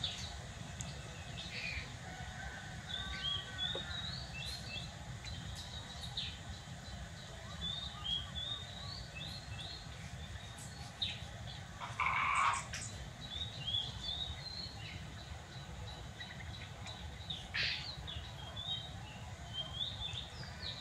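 Small birds chirping in quick clusters of short, high notes, over a steady low hum, with one louder, brief noise about twelve seconds in.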